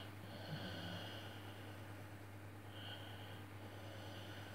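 A man breathing slowly through his nose close to the microphone, a few hissing breaths in and out, over a steady low hum.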